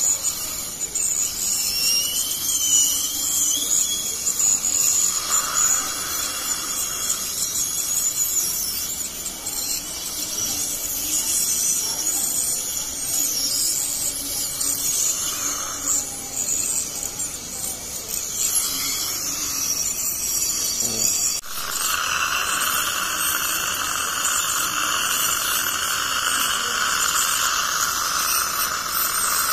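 Ultrasonic dental scaler running, a steady high whine with the hiss of its water spray and the suction, while scaling tartar off the teeth. About two-thirds of the way through the sound breaks off sharply and comes back steadier and slightly louder.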